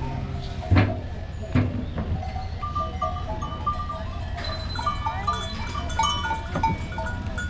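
Goats bleating, with two short louder calls in the first two seconds, and small animal bells tinkling repeatedly from a few seconds in over a low steady rumble.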